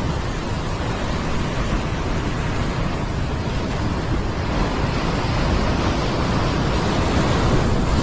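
Heavy ocean surf surging and foaming against a rock ledge, a steady loud wash of breaking water.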